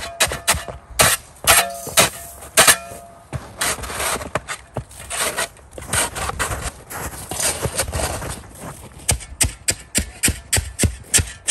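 Shovel scraping and crunching into snow-covered mulch in irregular strokes, digging for overwintered carrots.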